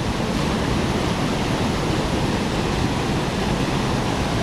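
Steady rush of high, fast floodwater pouring over a river spillway, an even roar with no change.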